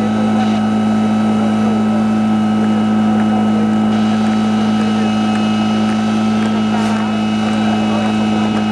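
Portable fire-pump engine idling steadily at a constant, unchanging pitch.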